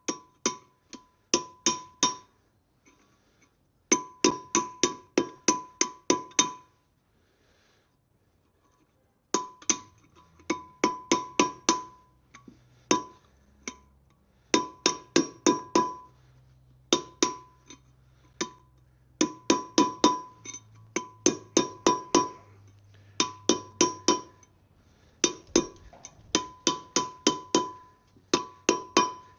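Hammer blows on steel, driving a new wheel bearing race into a Land Rover Defender 90 hub with the old race laid on top as a driver. The strikes come in runs of five to seven, about three a second, each with a short metallic ring, with pauses between runs.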